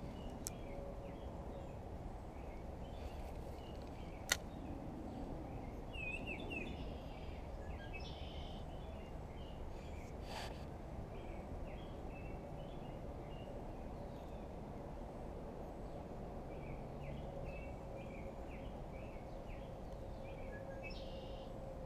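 Outdoor ambience: a steady low background hiss with scattered short bird chirps, and a single sharp click about four seconds in.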